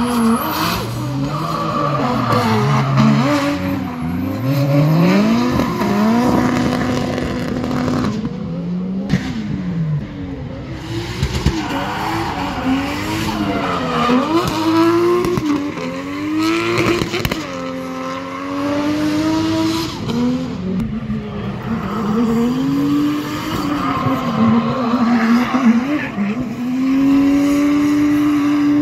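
Drift cars' engines revving up and down again and again as they slide through a hairpin, with tyres squealing. At times two engines sound at once at different pitches.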